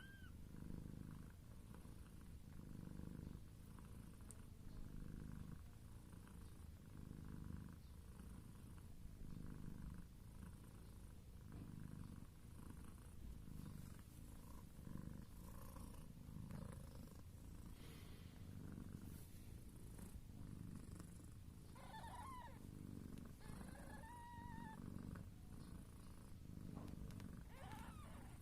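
Cat purring in steady waves, one pulse about every second, while newborn kittens nurse; a few short, high kitten mews break in about two-thirds of the way through and again near the end.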